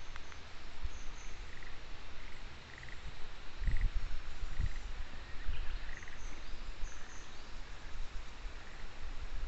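Frogs calling in a chorus: short, pulsed croaks repeating every half second or so, over a steady hiss with intermittent low rumbling.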